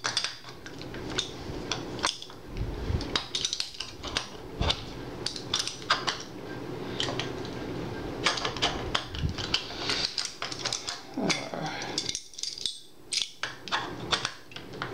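Light metallic clicks and rattles of small steel bolts being turned out by hand from the rear of a vz. 59 machine gun's steel receiver, with parts of the gun shifting against each other.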